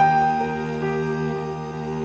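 Slow instrumental music, the intro of a love song before the vocals come in: a note struck at the start rings out and fades over held chords.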